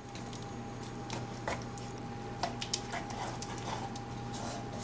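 Thick cream cheese sauce being stirred with a wooden spatula in a skillet: soft wet squelches and scattered small clicks of the spatula against the pan, a few sharper ones about halfway through, over a steady low hum.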